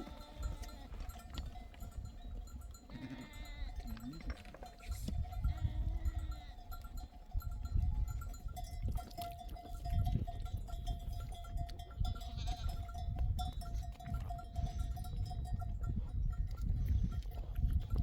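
Flock of sheep grazing, their neck bells clinking and ringing steadily, with a few bleats in the first half. A low rumble of wind on the microphone grows from about five seconds in.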